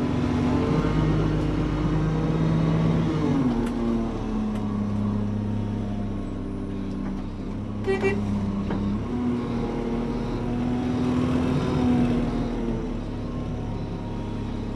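Front-load garbage truck's engine running, heard from inside the cab as the truck drives off. The engine note rises and then drops back a few times as it accelerates through its gears, with a brief sharp sound about eight seconds in.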